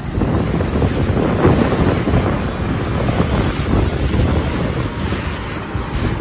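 Wind buffeting the microphone over the steady roar of a large waterfall.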